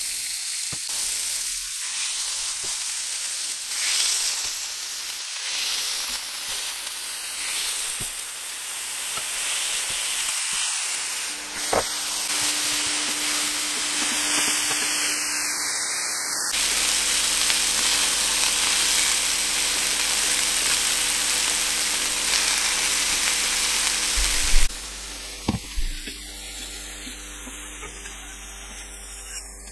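Beef smash-burger patties sizzling on a hot electric flat-top griddle, a steady frying hiss, with a few sharp clicks. The sizzle drops away suddenly about 25 seconds in.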